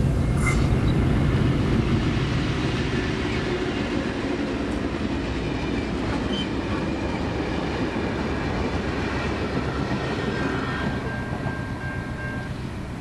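A 421 class diesel-electric locomotive passing at speed, its engine rumble loudest at the start, followed by its stainless-steel passenger carriages rolling by on the rails with a steady rumble that slowly fades.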